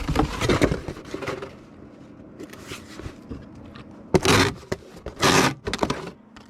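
Packing sounds: a cardboard shipping box and packing material being handled, scraping and crinkling. There are two louder rasping bursts, each about half a second long, about four and five seconds in.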